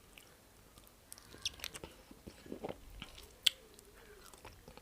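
Close mouth sounds of someone eating starch with black soup: soft, wet chewing smacks and clicks, scattered and quiet, with one sharper click about three and a half seconds in.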